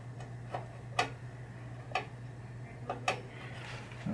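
Light sharp clicks, roughly one a second and uneven in strength, over a steady low hum.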